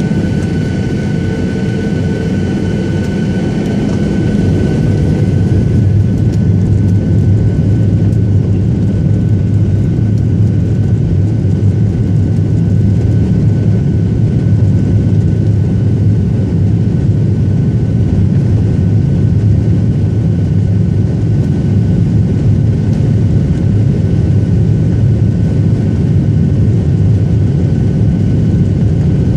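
Boeing 737 jet engines at takeoff power, heard from inside the passenger cabin as a loud steady roar with a deep rumble. A thin high whine fades out about five seconds in as the roar grows slightly and then holds.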